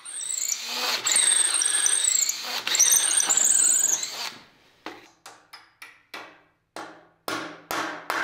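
Cordless drill boring into wood with a high-pitched squeal for about four seconds, then stopping; after it, a series of about eight short, sharp knocks roughly two a second.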